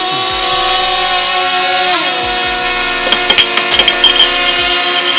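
DJI Mini 3 Pro drone's propellers spinning while it is held in the hand: a steady, loud multi-toned whine that dips slightly in pitch about two seconds in, with a run of sharp clicks in the second half.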